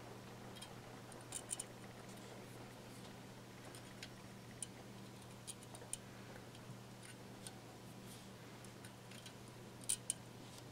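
Metal tweezers picking lint off a porcelain flower petal: faint, scattered light clicks, with a sharper pair near the end, over a steady low hum.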